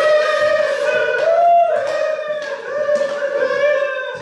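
Several voices holding one long sung note together, with a small rise in pitch about one and a half seconds in.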